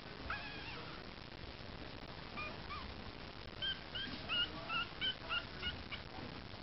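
Yorkshire terrier puppy whimpering: a high whine near the start, then about eight short high-pitched whimpers in quick succession in the second half.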